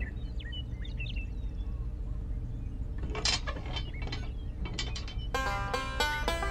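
Light clicks and taps of small plastic toy railway-crossing pieces being handled and set down on the model layout: a cluster about three seconds in and a few quick ones near five seconds, over a steady low hum. Background music starts about five seconds in.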